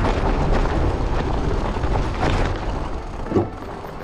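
Wind buffeting the camera microphone: a rough, rumbling rush that eases off over the last second, with a single knock about three and a half seconds in.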